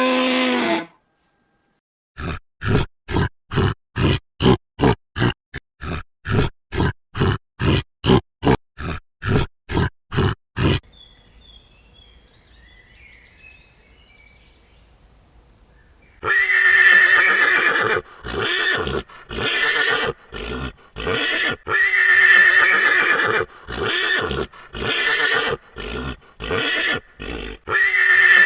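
Zebra braying: loud, repeated, horse-like barking whinnies in the second half. Before it comes a long run of rasping animal calls, about two a second, and then a few seconds of faint sound.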